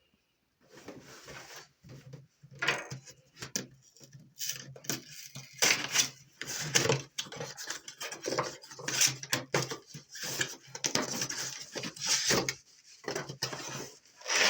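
Handling noise of a cordless reciprocating saw and its packaging being unpacked: irregular knocks, clicks and rustles of hard plastic and cardboard, over a faint steady low hum.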